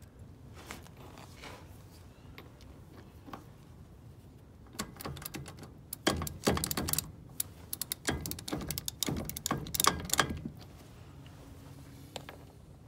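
A wrench working the axle nut on the hub's threaded axle end, giving quick irregular runs of metal clicks from about five seconds in until shortly after ten seconds. The nut is being snugged as tight as it will go.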